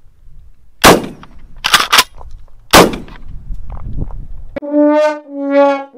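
Kel-Tec KSG pump shotgun giving two loud sharp cracks about two seconds apart, with three quick clacks in between. Brass-band music starts abruptly near the end.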